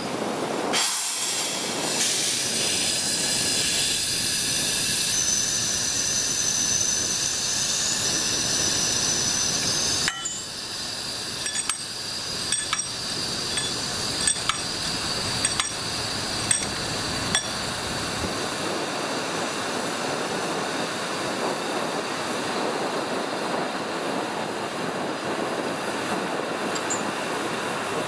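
Steam locomotive hissing steadily for about ten seconds, the hiss cutting off sharply. Then a run of sharp metal clinks as the coupling and brake hose between engine and carriage are handled, over a quieter steady hiss.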